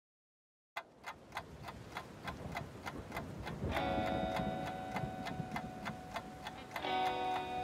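Background music starting about a second in with a steady ticking beat, about three ticks a second, joined by sustained held notes about halfway through and again near the end.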